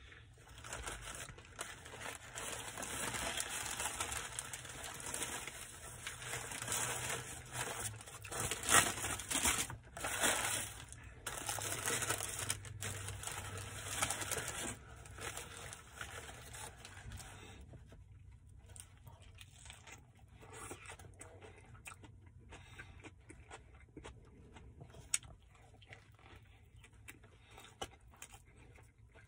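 Paper sandwich wrapper crinkling and tearing as a Subway sub is unwrapped, loud and continuous for about fifteen seconds. It then gives way to fainter, scattered sounds of chewing.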